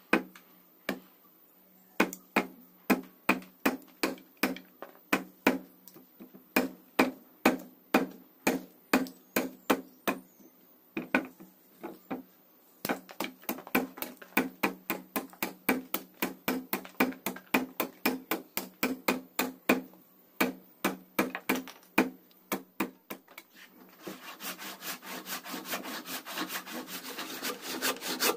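Machete chopping into a green tree branch clamped in a vise: a steady run of sharp strikes about two a second, coming faster partway through. Near the end a handsaw takes over, sawing through the wood in quick rasping strokes.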